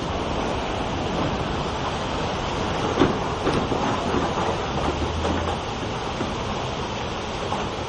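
Storm of heavy rain and strong wind: a dense, steady rushing noise, with a sharp knock about three seconds in.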